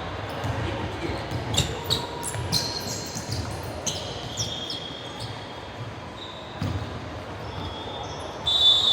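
A basketball bouncing on a hard court, with several short, high squeaks of sneakers on the floor; the loudest squeak comes near the end.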